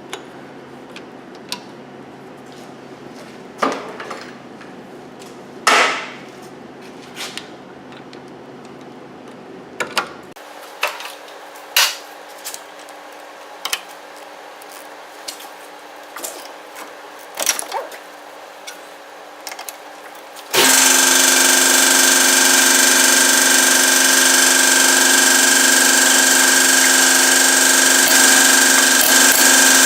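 Wrenches and sockets clinking on metal now and then as hub bolts are worked loose. About two-thirds of the way in, a loud steady machine noise starts suddenly and runs on.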